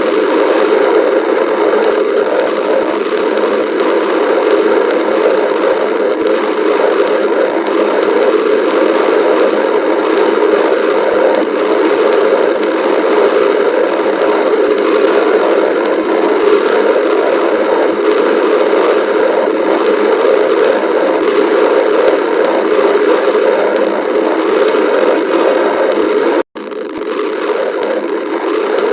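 A person's stomach growling, heard close up as a continuous loud rumbling noise, broken by a brief silent gap near the end.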